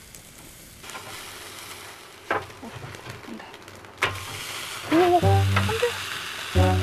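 Whole chicken sizzling on a mesh grill basket over a wood fire, its dripping fat hissing and crackling in the flames. About four seconds in, a sharp metallic clank as the grill basket is turned over, and the sizzling gets louder afterwards.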